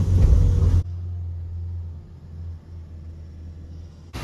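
Truck engine and road rumble heard from the cab, cutting off abruptly less than a second in to a quieter, duller low engine hum that runs on steadily.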